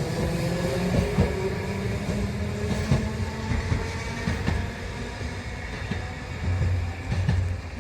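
Kagoshima City tram running over the crossing, its wheels clacking irregularly over rail joints above a low running hum, the sound slowly fading as it goes.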